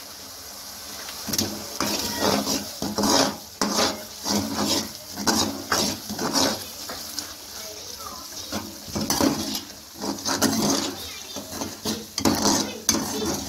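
Metal ladle scraping and clinking against a metal karahi as onion-tomato masala with freshly added red chilli powder is stirred, the strokes coming irregularly about once or twice a second from about a second in. A steady sizzle from the simmering masala sits underneath.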